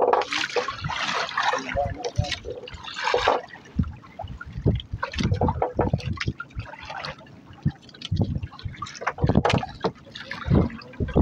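Sea waves slapping and sloshing against the hull of a small wooden fishing boat, in irregular splashes with low thuds; the sea is running strong.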